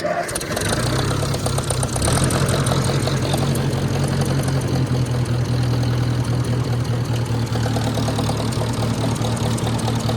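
Ford 860 tractor's four-cylinder engine catching on a cold start and running, settling into a steady idle warming up; it gets louder about two seconds in, then holds an even beat.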